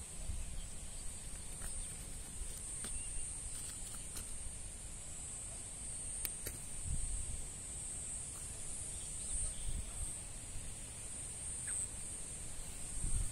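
Insects chirring steadily at a high pitch, over a low, uneven rumble with a few faint clicks.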